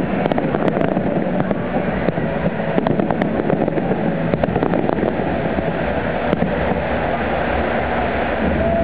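Large fireworks display: many shells bursting in quick succession, making a dense, continuous rumble with sharper cracks standing out now and then.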